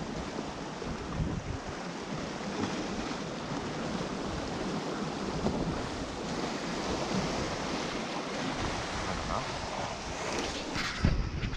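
Sea waves washing against a rocky shore, with wind buffeting the microphone. There are a few heavier low thumps near the end.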